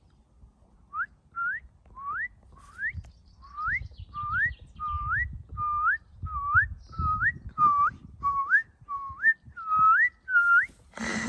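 A person whistling to a puppy: a string of short rising whistles, about two a second, starting about a second in and stopping just before the end, over a faint low rumble.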